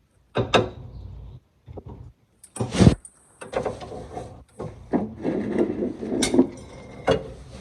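Irregular knocks, scrapes and rubbing of things being handled and shifted around, with one louder knock about three seconds in.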